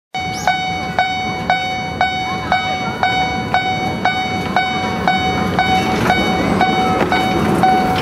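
Miniature railroad crossing signal's warning bell ringing the Japanese 'kan-kan' alarm at about two strikes a second, each strike ringing on into the next.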